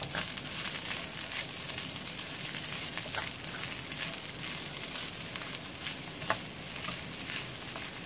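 Garlic fried rice sizzling in a non-stick frying pan over high heat: a steady hiss with scattered faint ticks.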